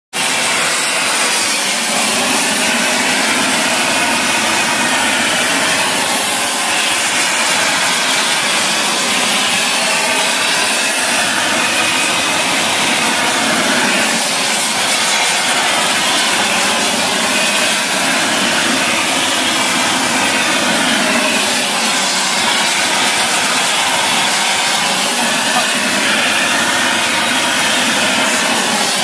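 Two flux-cored welding arcs burning at once as a steel repair sleeve is welded onto a pipeline: a steady, loud hiss.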